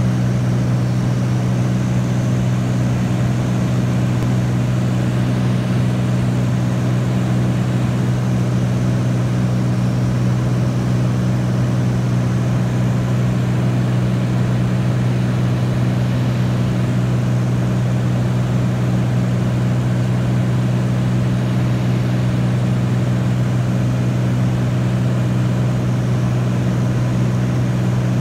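Small propeller plane's engine and propeller droning steadily, heard from inside the cabin as a constant low hum.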